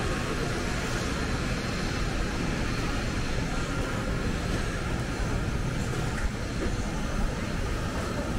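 Steady wind rumble on the microphone, a deep flickering noise with a lighter hiss above it.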